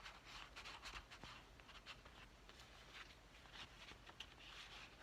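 Faint paper rustling with scattered light ticks and scrapes as the pages and tucked-in paper tags of a handmade journal are handled.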